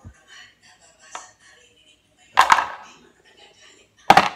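Wooden Jenga Xtreme blocks knocking against each other: two sharp clacks about a second and a half apart, the first with a short rattling tail.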